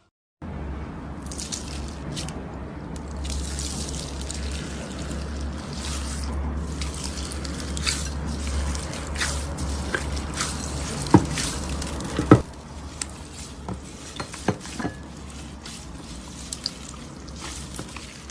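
Slime being squished and pressed by hand, with wet squishing and many sharp pops, the loudest two about eleven and twelve seconds in. A steady low hum runs underneath until about two-thirds of the way through.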